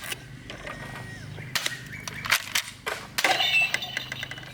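Toy gun firing: a handful of sharp shots spaced irregularly, then a quick run of rapid clicks near the end.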